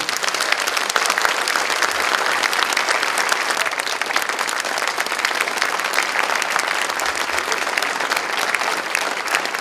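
An audience applauding steadily, many hands clapping together, as an award is presented on stage.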